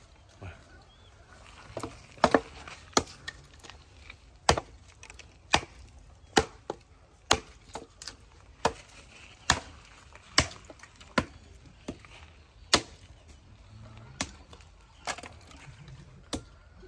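A hand axe chopping wood on a stump: a run of sharp chops, roughly one a second, starting about two seconds in.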